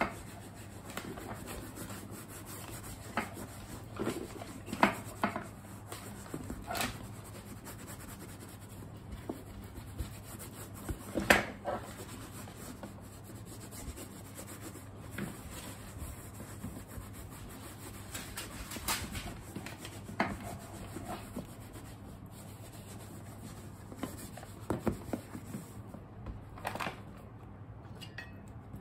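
A cloth rubbing and wiping over the pebble leather of a handbag, a soft continuous scrubbing, with scattered light knocks and clicks as the bag is handled, the loudest about eleven seconds in.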